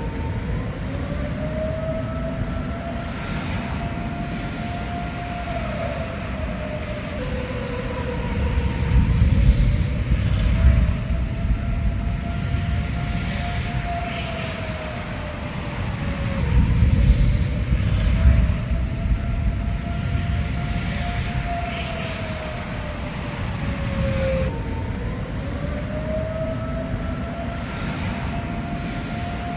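Outdoor tornado warning siren wailing, its tone climbing, holding and sliding back down about every eight seconds, sounding a tornado warning. A low rumble runs under it and swells twice.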